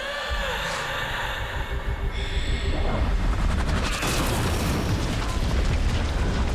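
Sound effects from a TV action scene: a deep, booming rumble over a music score, growing louder about two seconds in, with a sharp crash about four seconds in.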